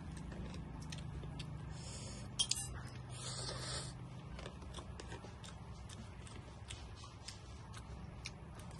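Person eating instant noodles with chopsticks: a short hissing slurp of noodles about three seconds in, with light clicks and chewing noises around it, over a low steady hum.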